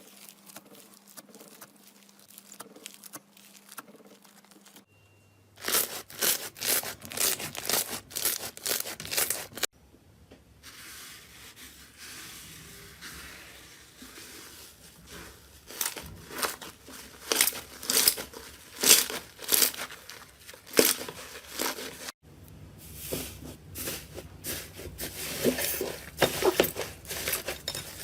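Slime being worked by hand, giving dense runs of crackles and pops, in several short clips that cut from one to the next. The stretch between about 10 and 16 s is quieter.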